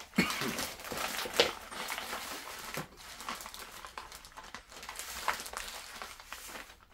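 Plastic accessory bag crinkling and rustling as hands open it and rummage through the small parts inside. The rustling is irregular, with a couple of louder crinkles in the first couple of seconds.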